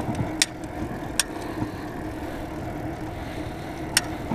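Fat bike rolling along an asphalt road: a steady rumble of tyres and riding noise, with a few sharp rattling clicks from the bike, about half a second in, at one second and near the end.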